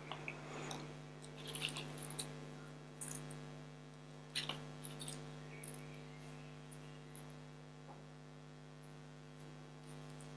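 Faint rustles and small ticks from hands wrapping green florist tape around wired flower and leaf stems, over a steady low hum.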